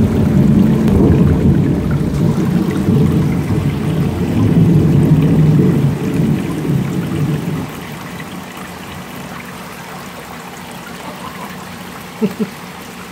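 Water rushing and bubbling from a turtle tank's filter outlet, loud and rumbling for about the first seven seconds, then a quieter steady trickle. Two short knocks come near the end.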